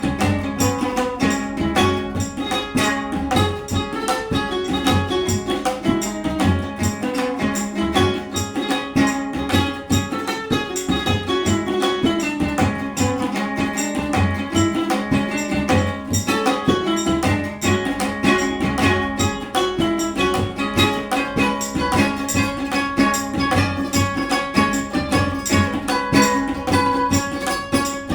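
Ukulele playing a melody over a tabla rhythm, with quick plucked notes above regularly repeating low drum strokes.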